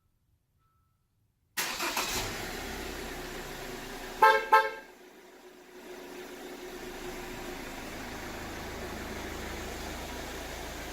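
Hyundai i30 horn giving two quick chirps, the signal of an aftermarket Magiccar M8 car alarm being operated. A steady low rumble follows a couple of seconds later.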